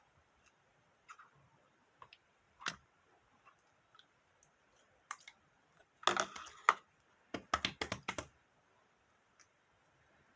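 Pink marbled slime being handled and pressed, giving scattered sticky clicks and pops, with two denser bursts of crackling about six and seven and a half seconds in.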